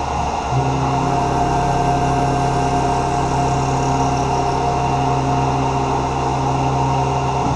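Tormach 1100 mill spindle running as a vertical lathe, turning a 1 5/8-inch steel tool-holder blank held in a 3-jaw chuck: a steady machine hum with a fixed higher whine. The low hum comes in about half a second in and drops out again near the end.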